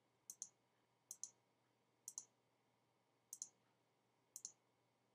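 Computer mouse button clicked five times, about a second apart, each a quick press-and-release pair of ticks, while removing conditional formatting rules in a spreadsheet.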